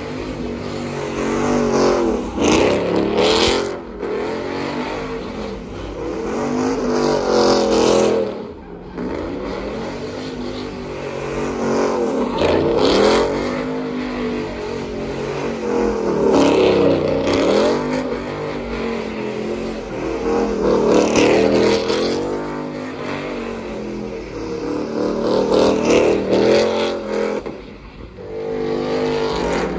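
Truck engine revved again and again, its pitch climbing and falling back roughly every four seconds.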